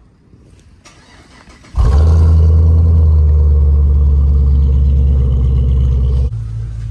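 Supercharged 6.2-litre Hellcat Hemi V8, swapped into a Dodge Charger Scat Pack, comes in suddenly about two seconds in and runs loud and steady with a deep rumble. About six seconds in it drops to a quieter, steady run.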